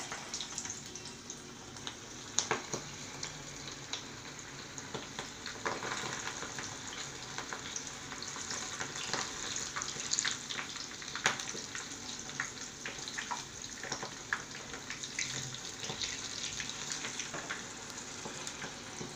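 Besan-coated colocasia leaf pieces (alu vadi) deep-frying in hot oil: a steady crackling sizzle that starts abruptly as the pieces go in, with many sharp pops and clicks throughout.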